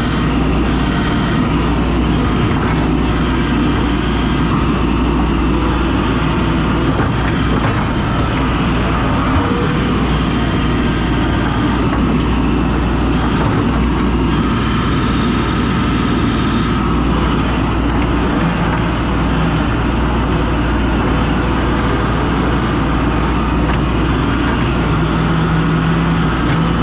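Skid steer engine running steadily under load, a loud continuous machine drone.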